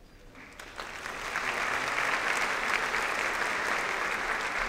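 Audience applauding, building up over the first second or so and then holding steady.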